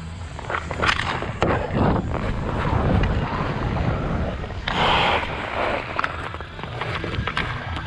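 Ice hockey skate blades gliding and carving on outdoor rink ice, with sharp clicks of the stick and puck on the ice. A louder scrape of the blades comes about five seconds in.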